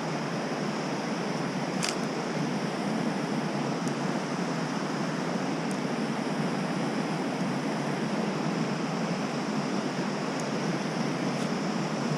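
Mountain stream water rushing steadily over rocks, with a few faint ticks.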